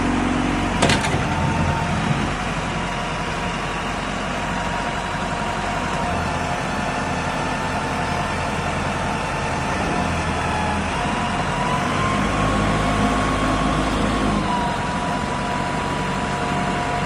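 Diesel engine of a CAT 420F backhoe loader running steadily, with a steady whine that steps up in pitch a little past halfway and drops back about three seconds later. A sharp click about a second in.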